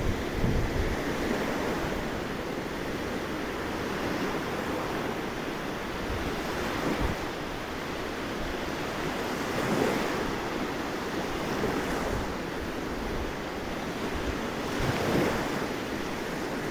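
Black Sea surf breaking steadily on the shore, swelling now and then as bigger waves come in, with strong wind buffeting the microphone.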